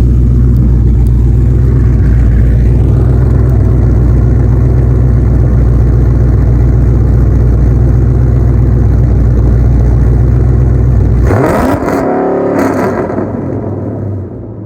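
Cammed Ford Crown Victoria's 4.6-litre V8 held at a steady high rev against an MSD two-step rev limiter, with a fast stutter as the limiter cuts the spark. About eleven seconds in the revs drop, and a few sharp pops crack from the exhaust before the engine settles to a lower rumble.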